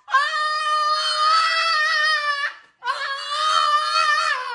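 French bulldog howling in two long, high-pitched, steady wails. The first lasts about two and a half seconds; the second starts about three seconds in and is a little shorter.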